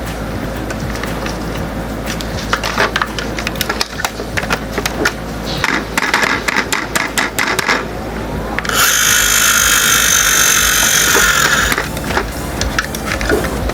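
Small clicks and ratchet-like rattles from the moving parts of a diecast toy truck being worked by hand. A few seconds of loud, steady hiss sit in the middle.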